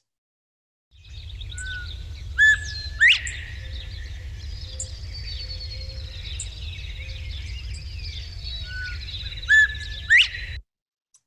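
Recording of a northern bobwhite giving its 'bob-white' call twice, about seven seconds apart: each call is a short level note and then a loud whistle that sweeps sharply upward. Other birds sing steadily in the background over a low rumble, and the recording starts about a second in and cuts off suddenly near the end.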